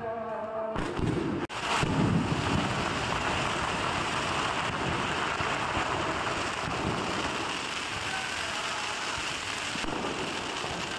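Aerial fireworks going off in a continuous dense crackle of many small popping stars, with deep booms of bursting shells about one to two seconds in.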